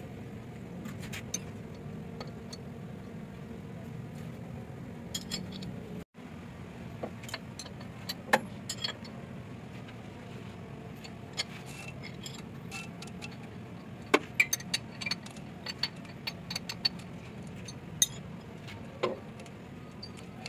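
A ring spanner and other metal parts clinking against an engine's belt pulley as the pulley is worked on, in scattered sharp clicks over a steady low hum.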